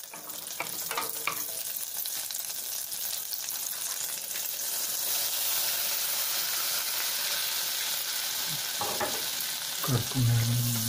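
Melted butter sizzling in a small stainless-steel saucepan as a wooden spoon stirs it: the butter is hot and ready for wheat flour to be roasted in it.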